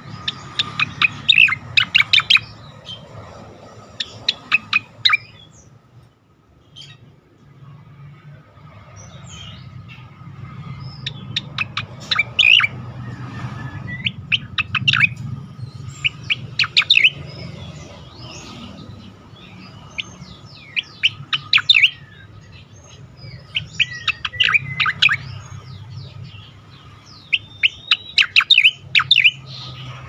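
Striated grassbird (cica koreng) singing: bursts of rapid, loud, high chirping notes, each a second or two long, repeated every few seconds.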